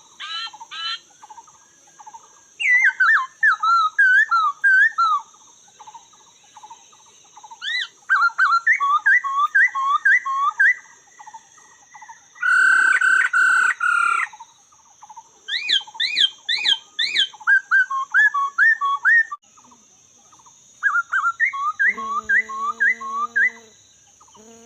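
Laughingthrush singing: loud, repeated whistled phrases of rising and falling notes, with a burst of harsh chattering about halfway through, over a steady high insect-like whine. Near the end a lower, stepped call joins in.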